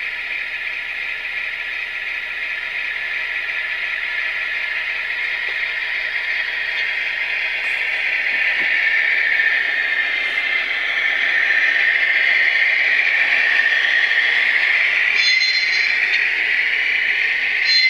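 HO scale GEVO model locomotive's Digitrax DCC sound decoder playing a GE diesel engine running, through the model's small onboard speaker; the engine sound grows louder about halfway through. Two short higher tones sound near the end.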